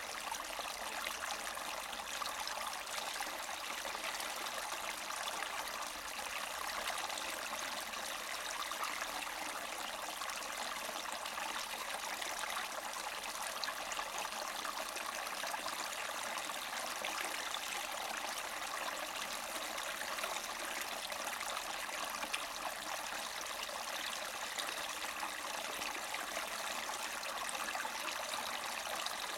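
Small spring-fed mountain brook gurgling and trickling over rocks, a steady unbroken rush of water.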